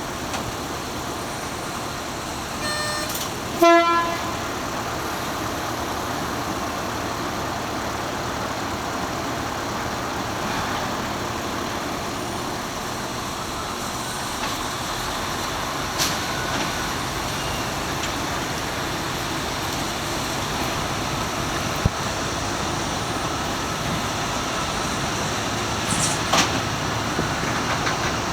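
Railway level-crossing electric bell ringing steadily, the mechanical striker-type crossing bell rather than an electronic chime. A short horn toot comes about three and a half seconds in.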